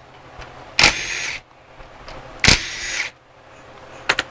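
Cordless power tool backing out 10 mm bolts in two short bursts of about half a second each, with a faint high motor whine in each. A few light clicks come near the end.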